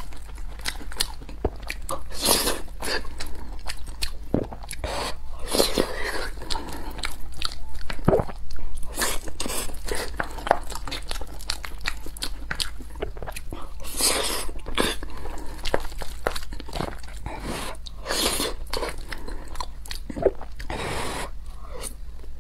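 Close-miked eating sounds: chewing and mouth clicks as spoonfuls of curry rice are eaten, with a wooden spoon scooping from the bowl, and a louder burst of mouth noise every few seconds.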